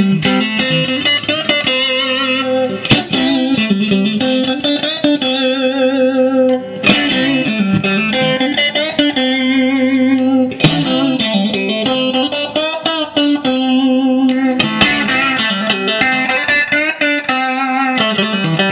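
1965 Fender Stratocaster electric guitar played through an amp with a pick: bluesy single notes and chords, some notes held with wavering vibrato, with a fresh attack every few seconds. It is a tone demo of the five-way pickup selector's positions, starting on the neck pickup.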